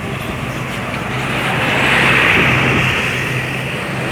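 A heavy road vehicle passing close by: engine drone and tyre noise swell to a peak about two seconds in, then ease off. No horn is sounded.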